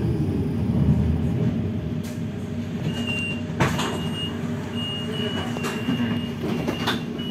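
Low rumble of a passing vehicle, with a thin high whine that comes and goes from about three seconds in and a single sharp click just after it starts.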